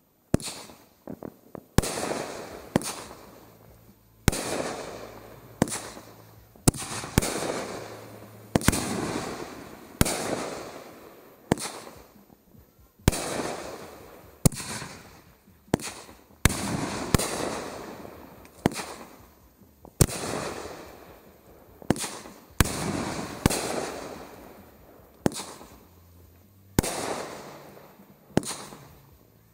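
Aerial fireworks bursting overhead in a steady run of about twenty shots, roughly one a second. Each is a sharp bang followed by a fading crackle.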